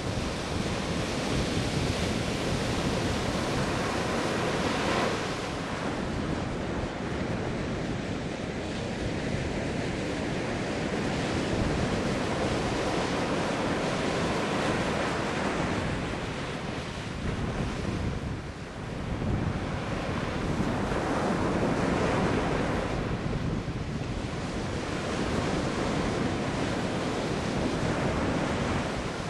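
Ocean surf washing up on a sandy beach, rising and easing as waves break, with wind buffeting the microphone.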